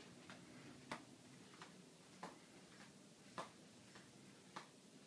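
Faint, sharp clicks repeating about every half second to second, alternating louder and softer, over a low steady hum.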